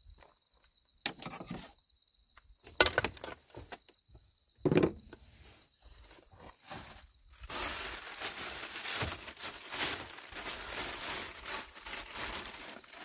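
Camp cookware being unpacked from a vehicle's cargo area: a few sharp knocks and clatters, the loudest about three and five seconds in, as a pan is set down. From about halfway on, a plastic bag rustles and crinkles steadily as it is pulled out and handled.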